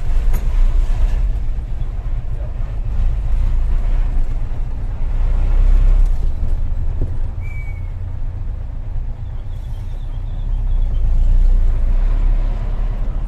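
Diesel engine of a Hino tronton dump truck running under way: a steady low drone that swells and eases as the truck drives. A brief high squeal comes about seven and a half seconds in.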